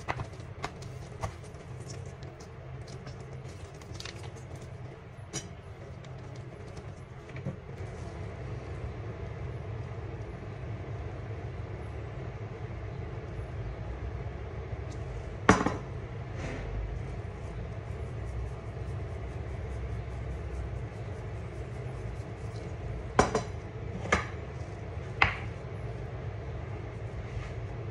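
A steady low background rumble, with a few sharp clinks and knocks as seasoning containers and a small glass bowl are handled and set down on a wooden cutting board, mostly in the second half.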